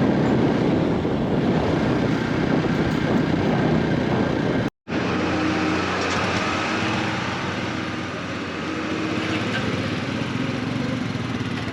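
Motorcycle engine running steadily on the move, mixed with wind rush on the microphone; the sound drops out completely for a moment about five seconds in.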